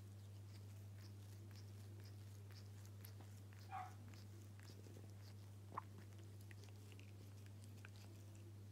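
Faint clicks of a domestic cat licking itself while grooming, over a steady low hum. There is a brief squeak about four seconds in and one sharp click near six seconds.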